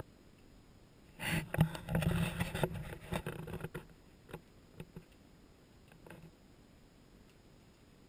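Rustling and crinkling of paper and gift packaging being handled. It comes as one burst of about two and a half seconds starting about a second in, then a few light taps.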